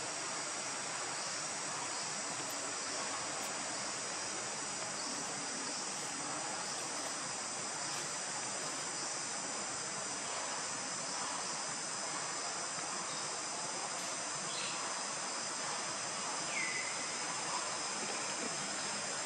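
Forest ambience: a steady, high-pitched drone of insects over a constant hiss, with two short high chirps in the second half, one of them quickly falling in pitch.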